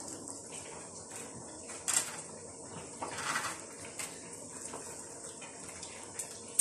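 Plastic bag crinkling and a plastic spoon scraping as harissa is scooped and pressed into lemon halves, with a few sharp clicks, the loudest about two seconds in, and a louder rustle a little after three seconds.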